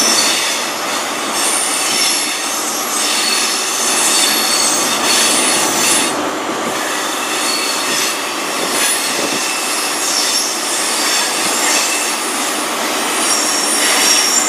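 Passenger train's wheels flange-squealing on the curved platform track: a steady high-pitched squeal in several tones, over the running noise of the moving train.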